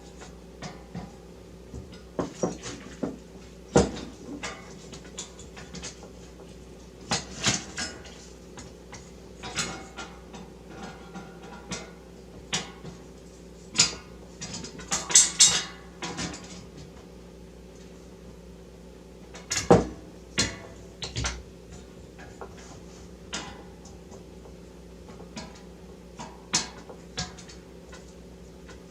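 Scattered clicks, clinks and knocks of metal rig-frame parts being handled and adjusted as a grooved rail is set to height, with a busier cluster about halfway through. A steady low hum runs underneath.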